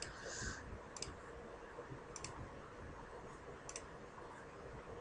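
Faint computer mouse clicks, four or five spaced a second or so apart, including a quick double click about two seconds in, over a low steady hiss.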